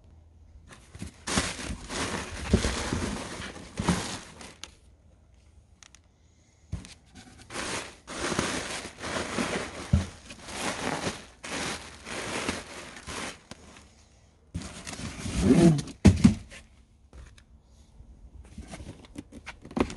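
Hands unpacking a cardboard shipping carton: plastic packaging crinkling and rustling with cardboard scraping, in three stretches, with a few thuds. A boxed battery in a plastic blister pack is lifted out and set down.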